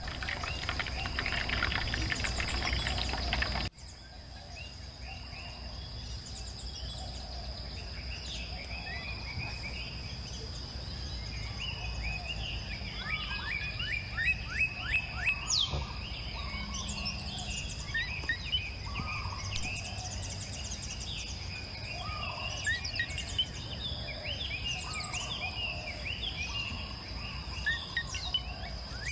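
Outdoor ambience of songbirds chirping in quick, repeated downward-sweeping notes, over a steady high insect-like drone. A louder, noisy passage at the start breaks off abruptly about four seconds in.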